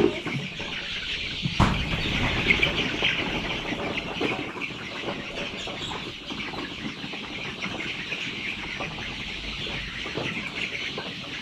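A flock of chickens calling continuously: a dense chorus of many overlapping clucks and cheeps. There is a single knock about a second and a half in.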